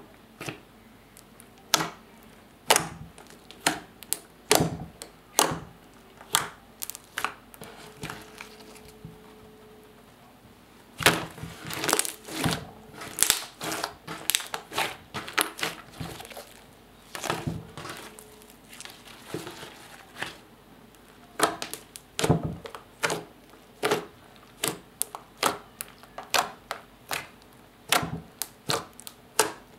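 Clear slime mixed with black eyeshadow and glitter being pressed and kneaded by hand, trapped air popping in quick, irregular sharp clicks and crackles, with a short lull about a third of the way in.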